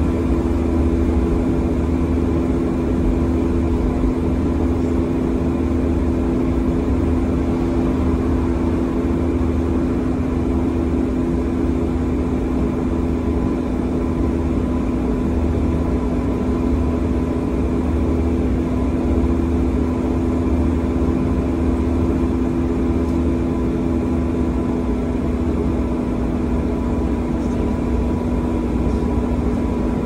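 Volvo B7TL double-decker bus's six-cylinder diesel heard from the upper deck, running steadily: a constant low drone with a steady whine over it. The bus has a blown exhaust.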